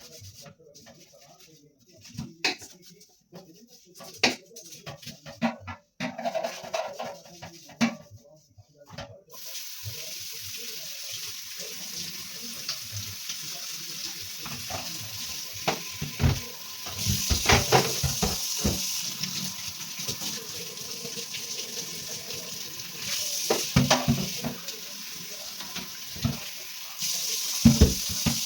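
Scattered knocks and clatter, then from about nine seconds in a kitchen tap turned on and running into a sink, with things knocking and clattering against it as they are washed.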